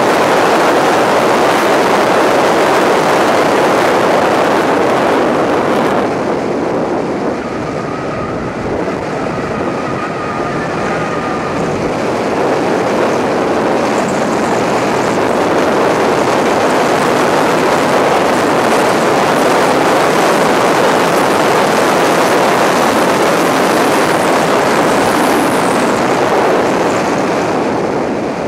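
A stock Subaru WRX's turbocharged flat-four engine and the wind rush at track speed, heard through a camera on the bonnet as a dense, steady roar. About six seconds in the sound thins and dips a little, then builds back up from about twelve seconds.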